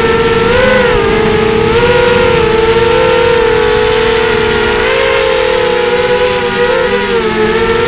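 FPV quadcopter's motors and propellers whining steadily, the pitch wavering up and down a little as the throttle changes, heard from the drone's onboard camera.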